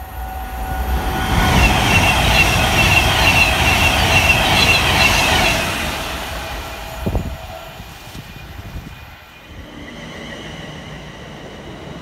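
Avanti West Coast Class 390 Pendolino electric train approaching at speed: a rising rush of wheel and rail noise with a high singing, squealing tone, loudest in the first half and fading after about six seconds. There is a single thump about seven seconds in, then quieter background noise.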